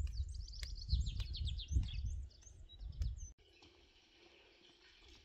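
Songbird singing a fast run of high chirping notes over a low rumble, both cut off suddenly about three and a half seconds in; a faint steady hiss follows.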